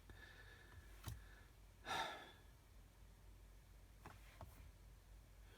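Near silence: music is running on the BMW's aftermarket 12.3-inch screen, yet no audio comes from the car's speakers. A person sighs once about two seconds in, and a few faint clicks are heard.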